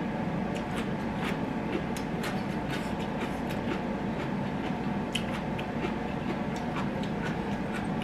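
A person chewing vegetables with the mouth closed, close to the microphone: soft, irregular crunching and smacking clicks. A steady low hum runs underneath.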